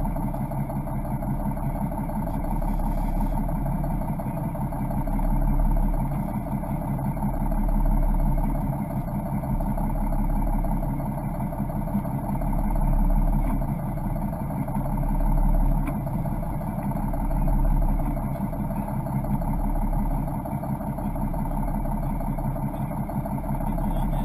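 Fishing boat's engine running steadily at low speed, a low drone whose deepest rumble swells and eases every two to three seconds.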